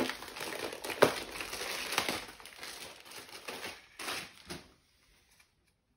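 Pink pineapple-print wrapping being crumpled and pulled open by hand around a folded T-shirt: a dense crinkling and crackling with sharp cracks about one and two seconds in, dying away after about four and a half seconds.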